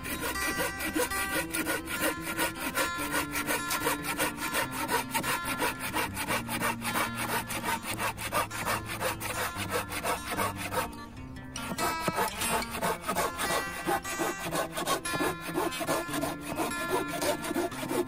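Hand saw cutting through a log with rapid back-and-forth strokes, pausing briefly about eleven seconds in. Background music plays underneath.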